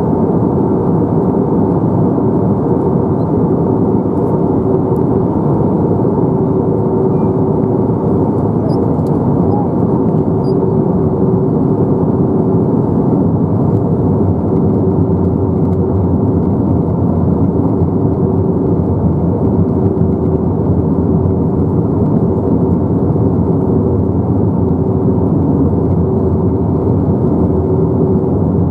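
Cabin noise of an Airbus A321-231 in flight, heard from a window seat: the steady hum of its IAE V2500 turbofans and the rush of air over the fuselage, with a couple of held drone tones running through it.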